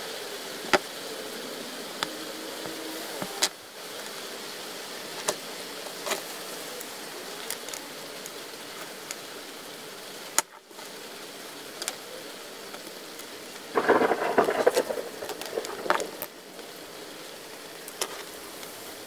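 Scattered small clicks and ticks of hands handling thin hookup wire and alligator-clip test leads on a workbench, over a steady hiss. A louder burst of rustling and scraping comes about fourteen seconds in.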